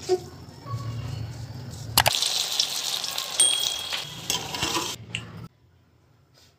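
Potato pakoras deep-frying in hot oil in a kadai: a loud, even sizzle that starts with a click about two seconds in and cuts off suddenly about a second before the end. Before it, quieter wet noise of grated potato being squeezed by hand.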